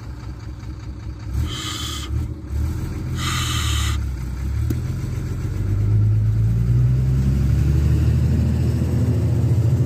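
KamAZ truck's diesel engine running, getting louder from about six seconds in as the truck comes closer. Two short hisses of air between one and four seconds in.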